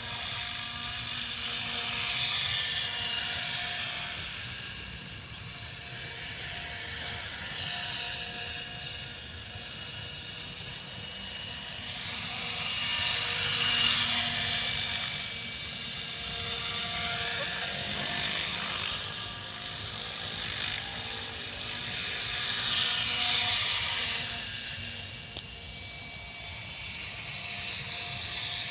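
KDS 700-size electric radio-controlled helicopter flying, its motor, gear whine and rotor blades running steadily. The sound swells and fades as it moves about, loudest about halfway through and again about three-quarters of the way in.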